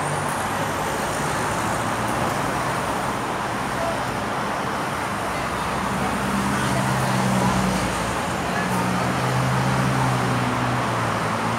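Steady road traffic noise. A motor vehicle's engine hum comes in about halfway through and grows louder for a few seconds.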